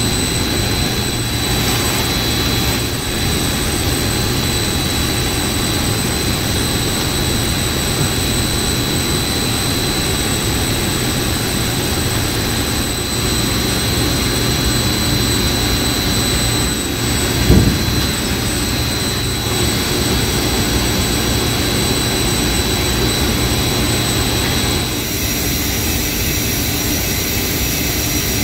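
Steady machinery roar of a building mechanical room, with a thin, steady high whine over it. A single thump about 17 seconds in; near the end the whine drops out and the roar carries on.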